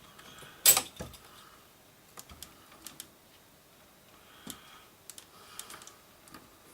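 Knocks and light clicks of a record player's chassis being handled and lifted out of its cabinet: one sharp knock less than a second in, then scattered small clicks and taps.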